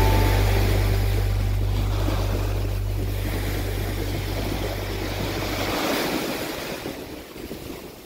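Sea waves washing in, heard as a steady rushing noise, over a low steady hum that cuts off about six seconds in.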